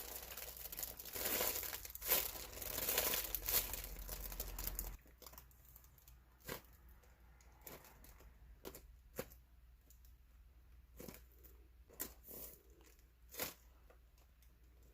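Plastic packaging crinkling and rustling as it is handled for about five seconds, then much quieter, with scattered faint crinkles and clicks.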